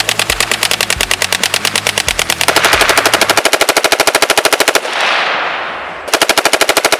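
Automatic gunfire: a machine gun firing a long burst at about ten rounds a second. The burst stops a little before five seconds in and its echo dies away, then a second burst starts about a second later.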